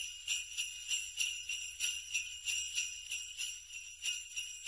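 Sleigh bells shaken in a steady rhythm, about three to four shakes a second.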